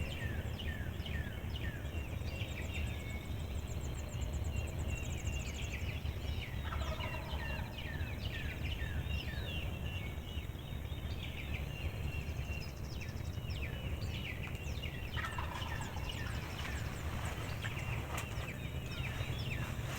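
Wild turkey gobbler gobbling twice, about eight seconds apart, with songbirds chirping and singing throughout.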